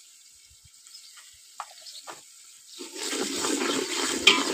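Metal slotted spoon stirring a watery mix of browned onions and spices in an aluminium pot, sloshing and scraping, starting about three seconds in, with a sharper knock near the end.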